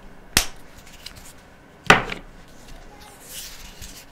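Plastic highlighter marker pens being handled as one is swapped for another: two sharp plastic clacks about a second and a half apart, then a soft rustle near the end.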